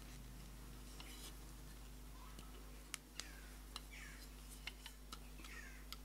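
Several light clicks and small handling sounds of a Veritas honing guide being taken apart and refitted, its straight roller swapped for the barrel roller, over a faint steady room hum.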